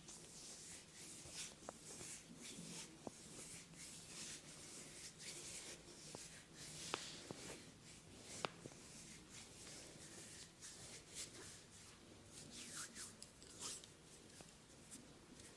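Hands rubbing and scratching over skin and hair during a massage: soft, irregular swishing strokes, with a few sharp clicks scattered through the middle.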